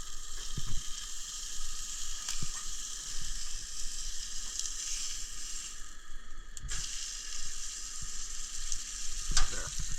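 Hamburger patty sizzling steadily in a hot frying pan, with a few light knocks as it is turned.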